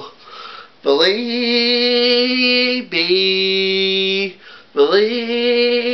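A man singing three long, drawn-out notes, about two seconds each with short breaths between them, the pitch dropping on the second note and rising again on the third.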